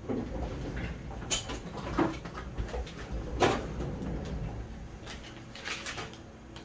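Handling noises: a few separate clicks and knocks, then a small cluster of crinkly clicks near the end as a clear plastic sleeve is pulled over an ultrasound probe.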